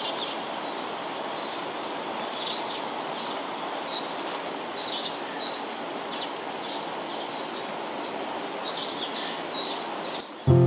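Steady background noise with birds chirping in many short, high calls throughout. Music cuts in at the very end.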